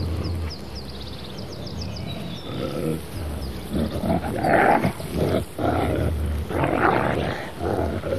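Wolves growling and snarling as they fight, quieter at first, then loud, rough snarls in quick bursts over the second half.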